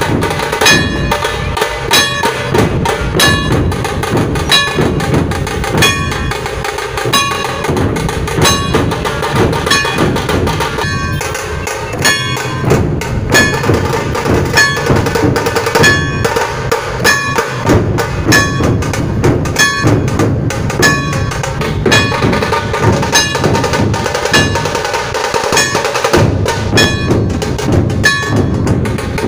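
Dhol-tasha ensemble playing: many large dhol barrel drums beating together with the sharp stick strokes of tasha drums, in a steady, loud, repeating rhythm.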